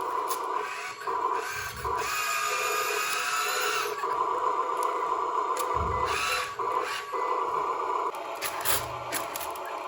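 Small electric motors and gearing of radio-controlled models whining in on-and-off spells, strongest in a two-second stretch, with a few sharp clicks near the end.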